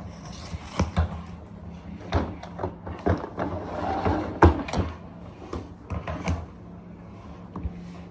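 Handling noises from a small vacuum cleaner being readied before it is switched on: irregular plastic clicks, knocks and rattles, loudest about four and a half seconds in, over a faint steady low hum.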